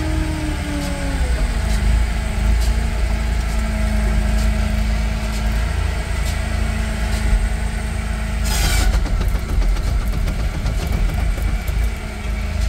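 Hitachi ZW50 compact wheel loader's diesel engine running, heard from inside the cab, its note dropping about a second in and then holding steady. Scattered knocks run through it, and there is a brief hiss about two-thirds of the way through.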